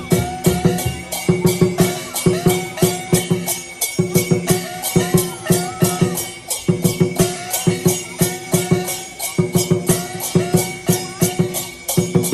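Lion dance percussion: a large drum beating hard under rapid, steady clashes of cymbals, several a second, in a driving rhythm.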